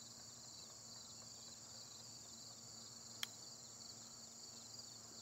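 Faint, steady high-pitched chirring of crickets and other insects, finely pulsing. A single sharp click about three seconds in.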